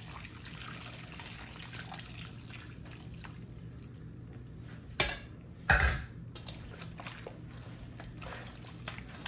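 Thick blended marinade pouring and dripping from a blender jar onto raw pork chunks in a stainless steel bowl, with a sharp knock and then a heavier thump about five to six seconds in. After that come soft wet squelches as bare hands work the pork in the marinade, over a low steady hum.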